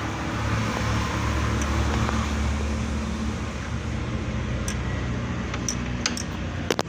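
Steady background hum and noise, with a few light clicks in the last couple of seconds.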